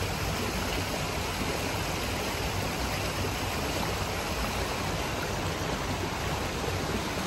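Small rocky creek rushing over rocks in a shallow riffle: a steady rush of running water.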